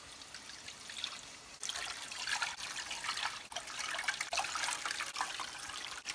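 Water poured from a glass measuring cup into a wide pan, splashing onto the pan and a die-cast toy car body lying in it. The pour gets louder about a second and a half in.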